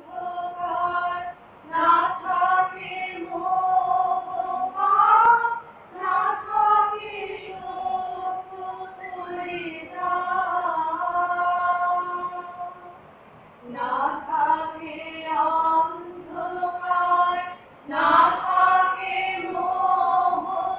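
Female voices singing a slow melody, in long held phrases with a few short breaks between them.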